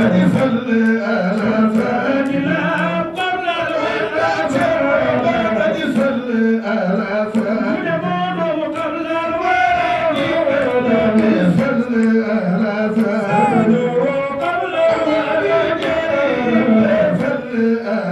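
A man chanting an Islamic devotional song into a handheld microphone, amplified through a sound system. He sings long melodic phrases that rise and fall without pause.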